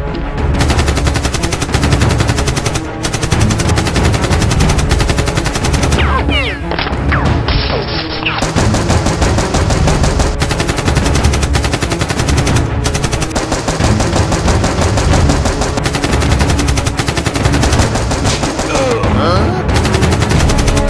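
Dubbed-in action-movie gunfire effects: long bursts of rapid automatic fire, a dense rattle of shots. A few short gliding whines cut through about a third of the way in and again near the end.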